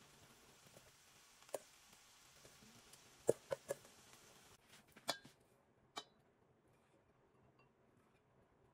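Kitchen tongs clicking and tapping against a stainless steel mixing bowl as salad is served into a bowl. There are a few short, sharp clicks, three of them in quick succession about three seconds in, over a faint room hiss.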